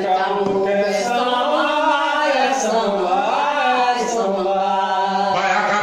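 Male voices singing a Tambor de Mina doutrina, a sacred chant for Jurema, in a continuous sung line.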